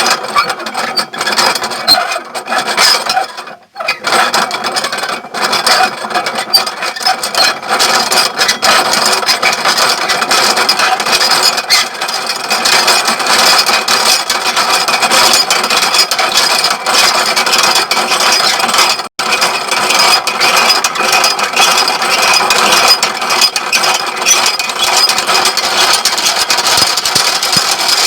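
Small sugarcane-crushing mill (engenhoca) running, its gears and rollers grinding and rattling in a loud, steady rasp full of quick clicks. The sound dips briefly about three and a half seconds in.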